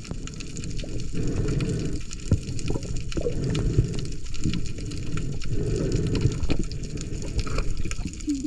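Sea water rushing and sloshing in low, uneven surges about once a second.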